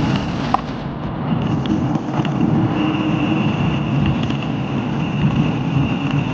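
Wind buffeting the microphone and tyres rumbling over a rough, broken road surface while riding a bicycle, with scattered small knocks from bumps and a sharp click about half a second in. A faint steady high tone runs in the background.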